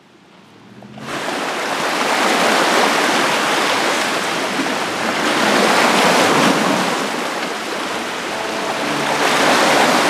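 Lake waves washing onto the shore: a loud, steady rushing that begins suddenly about a second in and swells and eases.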